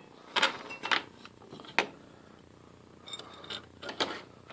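Loose steel gears and a shaft clinking and knocking against each other and the gearbox housing as a lathe quick-change gearbox is taken apart by hand: a few separate sharp clinks, the loudest about half a second and nearly two seconds in.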